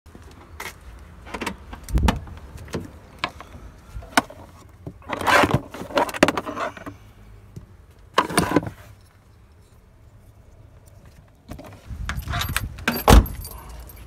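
Keys jangling and clinking as they are handled, among scattered sharp clicks and a few deep thumps. The jangles come in short clusters, with a quieter stretch just past the middle.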